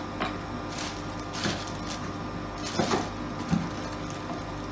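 Packaging being handled: a few short rustles and light knocks as small accessories are put back into a cardboard box, over a steady low electrical hum.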